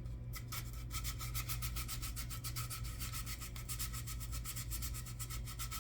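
Wet sandpaper rubbed in quick, even back-and-forth strokes over dried putty on a 1/25-scale plastic model car body, sanding filled sink marks flush. The strokes start about half a second in and run on at several a second.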